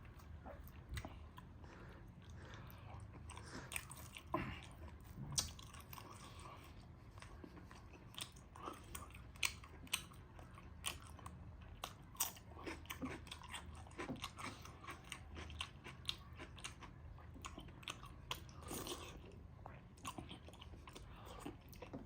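Close-up eating sounds from a meal of dhido with buffalo meat curry: chewing and biting with irregular sharp mouth clicks and smacks, fairly quiet.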